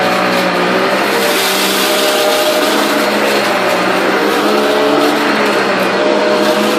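Simplicity Synergy upright vacuum running steadily with both its suction motor and its brush-roll motor on, making a steady whine over a rushing of air as it is pushed forward and back over carpet.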